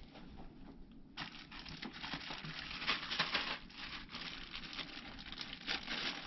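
Clear plastic bag crinkling as it is handled, starting suddenly about a second in and going on as a dense, irregular crackle.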